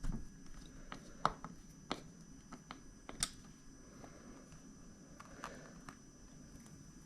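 Light clicks and taps of a Snap-on light's parts and screws being handled and fitted together during reassembly, with sharper clicks a little over a second in, near two seconds and just after three seconds.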